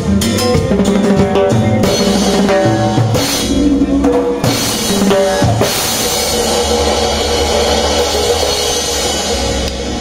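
Drum kit played live, with bass drum, snare and cymbals, over pitched musical accompaniment; from about the middle on, cymbals ring out in a sustained wash.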